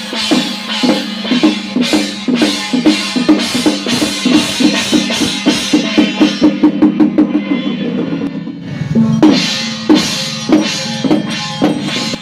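Drums and cymbals beating, a steady pulse that quickens into a rapid roll, breaks off briefly about nine seconds in, then starts again.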